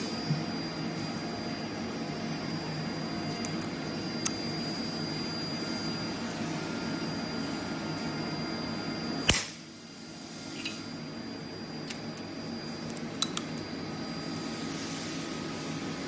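Capacitor-discharge stud welder firing an insulation pin onto a steel plate: one sharp crack about nine seconds in. Around it runs a steady machine hum with a faint high whine, which drops briefly after the weld, and there are a few light clicks.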